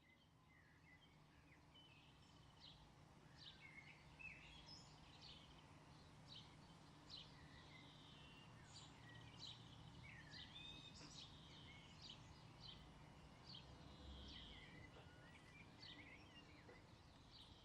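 Faint birdsong from several small birds: many short chirps and quick falling notes, fading in at the start, over a low steady background rumble.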